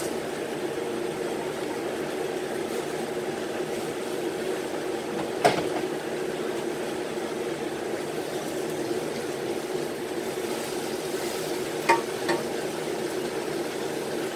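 Steady hum of a kitchen exhaust fan, with a sharp knock of kitchenware about five seconds in and a quick double knock near twelve seconds.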